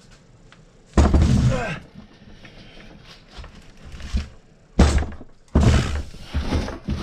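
Heavy Dnepr MT-11 motorcycle engine block being hefted and set down on a wooden workbench: a loud thunk about a second in, then two more knocks near the end.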